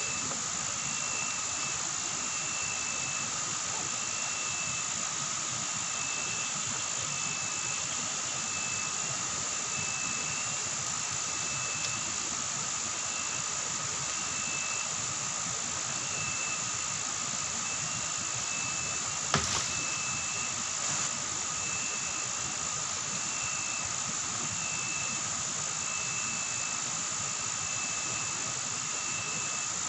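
Night insect chorus in tropical forest: a steady high buzz with a regular pulsing chirp repeating under it, and one sharp click about 19 seconds in.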